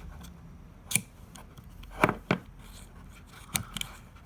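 Sharp clicks and snaps as the breech of an Alien Revelation paintball marker is worked by hand, its delrin plate and sliding trap door moving open and shut. There are about five clicks, the loudest a close pair about two seconds in.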